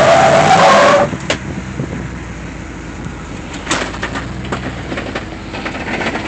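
Lifted Jeep Grand Cherokee's engine running under load as it crawls through a rock crevice, with a loud harsh squealing burst that stops about a second in, followed by scattered knocks of tires and body against rock.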